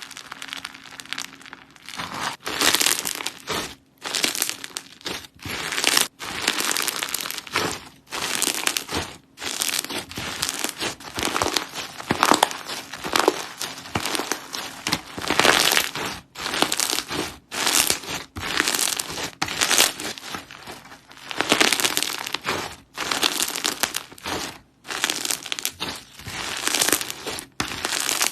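Hands squeezing and stretching slime, giving dense crackling and crinkling in repeated bursts of a second or two, with short pauses between them.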